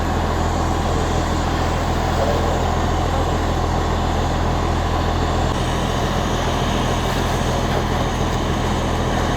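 Diesel engines of fire trucks running steadily at a fire scene, a low drone with a noisy haze over it; one low tone in the drone drops away about five and a half seconds in.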